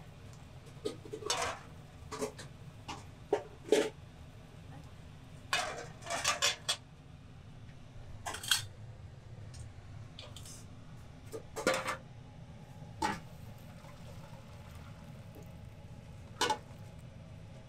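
Metal utensils clinking and knocking against thin aluminium cooking pots on a commercial gas range: a ladle and tongs strike the pots in about a dozen irregular, sharp clanks. A steady low hum runs underneath.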